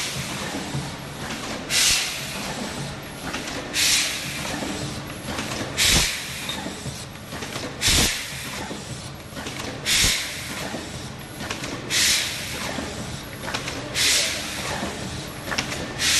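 Automatic spout-pouch filling and capping machine running: a short, loud hiss of air from its pneumatic valves about every two seconds, a few of them joined by a knock from the moving tooling, over a steady mechanical hum.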